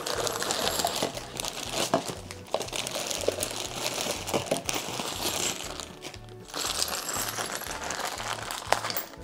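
Plastic packaging wrap crinkling and rustling as wrapped cushions and parts are handled, with scattered sharp clicks and clinks of small plastic parts. Background music with a steady bass line plays underneath.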